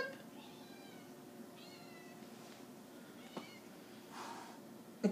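A cat meowing faintly, with short high cries about half a second and about two seconds in, and a single light tap a little after three seconds.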